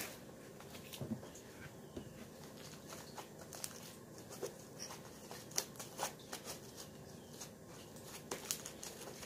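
Faint sticky clicks and small squelching pops, scattered and irregular, from slime being kneaded and stretched by hand.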